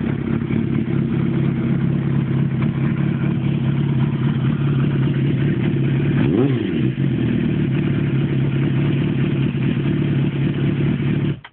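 Kawasaki ZXR400's inline-four engine idling steadily through an aftermarket slip-on silencer, with one short throttle blip about six and a half seconds in. The sound cuts off abruptly at the end.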